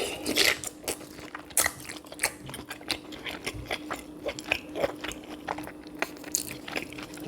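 Close-miked mukbang eating: biting and chewing sausage and soft sweet potato coated in butter sauce, with many irregular wet mouth clicks and smacks.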